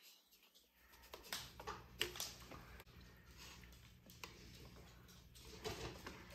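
Faint, light clicks and taps of a plastic knife and a plastic heart-shaped cookie cutter against a plate while cutting a pancake, a few in quick succession a second or two in and more near the end.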